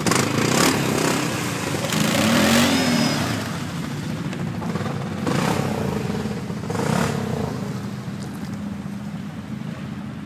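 Quad bike (ATV) engines revving in repeated bursts as they drive through deep mud and water, the pitch rising and falling with each burst over a steady underlying drone.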